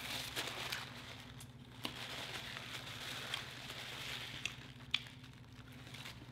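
Paper napkin crinkling and crumpling as it is handled, a soft crackling with a few sharp clicks, the sharpest about five seconds in.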